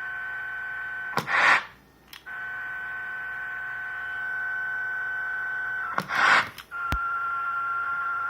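Steady electronic buzz, one tone with many overtones, on a Cobra 29 Competition CB radio's transmission, heard through a monitoring receiver's speaker. It is broken twice by short bursts of static hiss, with a sharp click about seven seconds in. The buzz rides on the transmitted signal with no voice on it: a fault in the radio that the owner says other stations' radio reports confirm.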